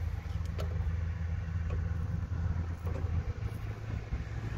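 A steady low engine rumble runs throughout, with a few faint metal clicks from an adjustable wrench working loose the small bleed screw on the head of the last diesel fuel filter.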